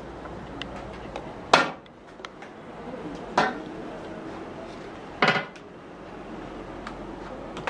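Metal floor grating clanking underfoot: three sharp metallic clanks roughly two seconds apart, each ringing briefly.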